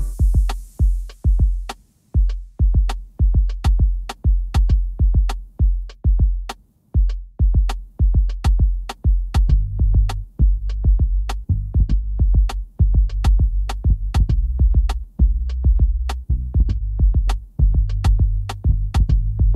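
Lo-fi hip-hop music: a steady drum-machine beat over a deep bass line, the melody dropping out at the start to leave only drums and bass.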